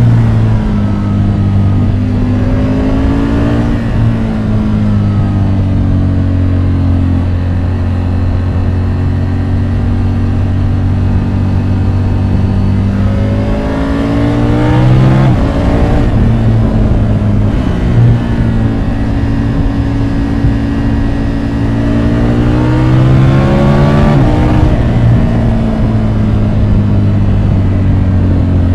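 Triumph Tiger 850 Sport's three-cylinder engine, recorded on board under way. The engine note climbs with the revs three times, each time dropping sharply at the top, with steadier running between.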